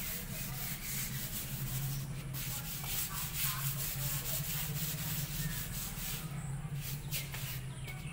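Blackboard eraser wiping chalk off a chalkboard in quick, repeated scrubbing strokes. A steady low hum runs underneath.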